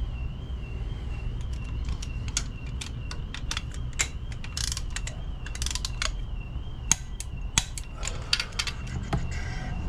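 Hand ratchet clicking in short irregular runs, with metal knocks of the socket and extension against the bolts, as the mounting bolts of a DD15 oil/coolant module are run down. A few louder knocks come about seven seconds in.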